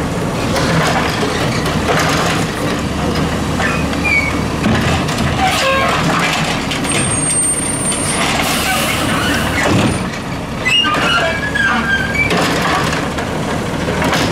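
Peterbilt 320's CNG engine running under load while the Heil DuraPack 7000 automated side-loader's hydraulic lift arm empties a garbage cart into the hopper, sets it down and picks up the next one. The cart and arm clunk several times along the way.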